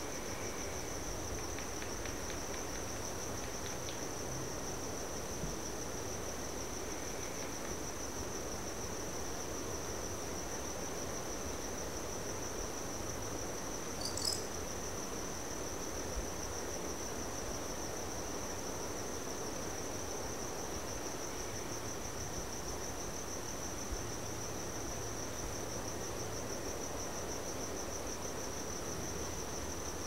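Crickets trilling steadily in one continuous, finely pulsing high tone over a soft steady background noise. A brief high chirp cuts in about halfway through.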